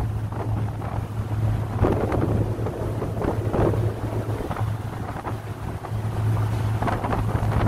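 Staten Island Ferry running under way, its engines giving a steady low drone, with wind gusting across the microphone on the open deck.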